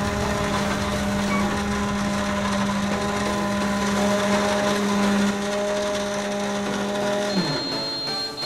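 Toy microwave running with a steady hum, winding down with a falling pitch near the end, followed by a thin high beep.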